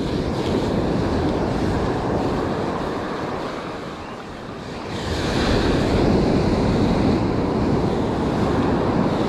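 Ocean surf washing on the shore, with wind buffeting the microphone; the surf swells louder about five seconds in.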